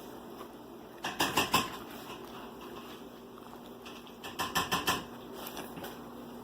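Dog sniffing in two quick bursts of rapid snuffs, about a second in and again about four seconds in, nose pushed into a fabric activity mat hunting for treats.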